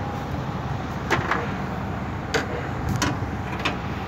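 Handling of a compressor run capacitor and pliers at an air-conditioner outdoor unit: a handful of sharp clicks and light knocks, about five, as the wire connectors on the old capacitor's terminals are gripped, over a steady background rumble.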